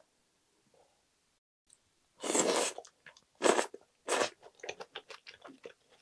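A person slurping ramen noodles from budae-jjigae: one long slurp about two seconds in and two shorter ones, followed by a quick run of wet chewing clicks.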